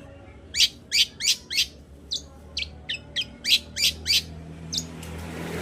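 Long-tailed shrike (cendet) calling: a quick run of short, sharp, high chattering notes, about three a second, over a low steady hum. A hiss swells near the end as the notes stop.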